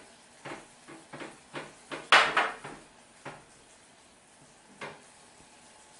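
Spatula knocking and scraping against the side of a glass mixing bowl while stirring egg custard: a run of clinks, two or three a second, the loudest about two seconds in, then one more knock near the end.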